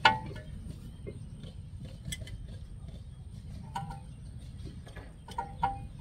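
Metal brake parts and tools clinking as they are handled and fitted: one sharp clink at the start, then a few lighter ringing clicks through the rest, over a steady low background rumble.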